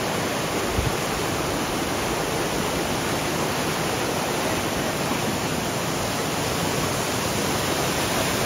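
Waterfall rushing with a steady, loud roar, running heavy after recent rain. A brief low thump about a second in.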